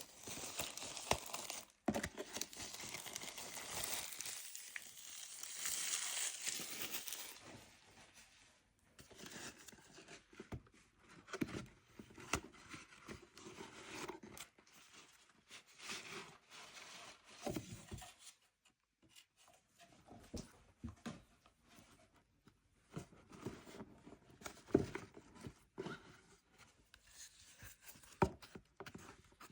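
Plastic packaging of a Pokémon Elite Trainer Box being torn and crinkled by hand. There is a long stretch of tearing for the first several seconds, then scattered crinkles and light taps as the packaging is handled.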